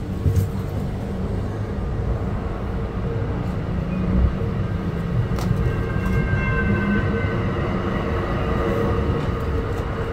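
Bombardier MultiLevel commuter rail car in motion, heard from between two cars: a steady rumble of wheels on rail with scattered clicks and knocks. A faint high squeal comes in about six seconds in.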